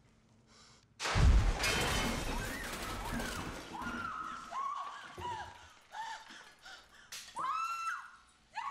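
A sudden loud crash of pots, pans, utensils and chairs falling all at once onto a hard kitchen floor about a second in, clattering and settling over the next couple of seconds. Then come a woman's short, repeated frightened cries.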